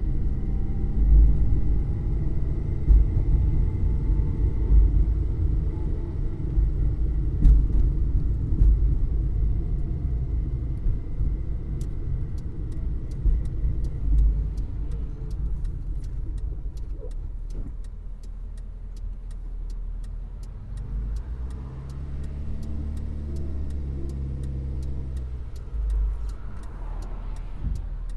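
Car engine running, heard from inside the cabin, with a heavy low rumble that eases about halfway through to a quieter, steadier engine note. Faint evenly spaced ticks run through the second half.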